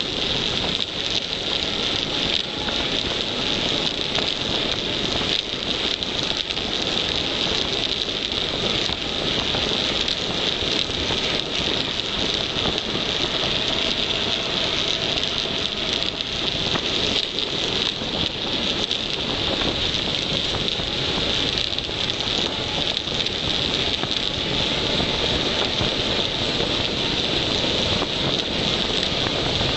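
Steady rush of wind over the microphone together with the tyres of a KTM Tombstone mountain bike running fast on tarmac during a downhill descent.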